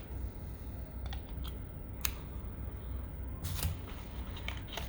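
Scattered light clicks and taps from small phone accessories and their packaging being handled, with a sharper click about two seconds in, over a low steady hum.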